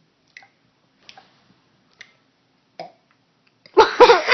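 A child's forced, wimpy burp near the end, a short pitched sound in several pulses, made by swallowing air. Before it come faint mouth clicks, about one a second, as he gulps air.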